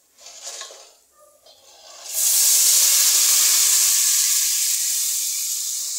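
Blended tomato poured into a pot of bowtie pasta browned in hot oil, bursting into a loud, steady sizzle about two seconds in that slowly fades.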